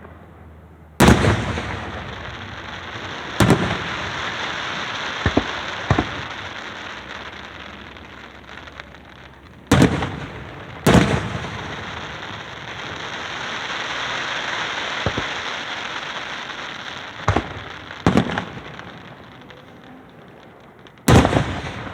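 Aerial fireworks bursting over a lake: about nine sharp bangs a few seconds apart, the loudest about a second in, near the middle and near the end, with a crackling hiss between them that swells in the middle.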